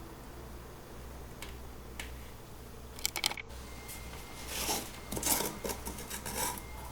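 Light clicking and clattering of small hard parts being handled: a few scattered clicks, a quick cluster of rattles about three seconds in, then denser clatter in the second half.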